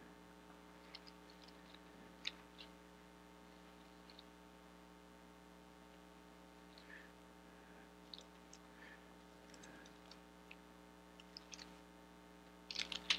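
Near silence: a steady faint electrical hum from the sound system, with a few soft ticks and rustles of paper pages being handled and turned. A short breath near the end.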